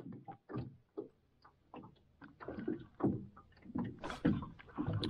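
Handling noise of a fishing rod and spinning reel in a small boat: irregular clicks, taps and dull knocks against the boat as the rod is picked up and gripped.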